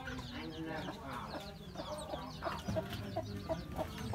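Broody hen sitting on eggs, clucking. Short low clucks come in a quicker run, about four a second, in the second half.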